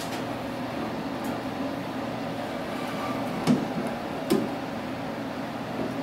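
Two knocks of a sheet-metal furnace cover against the unit's chassis as it is lowered into place, under a second apart, over a steady low hum.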